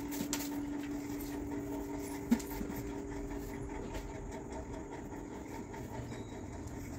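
A steady mechanical hum, with one sharp click about two seconds in.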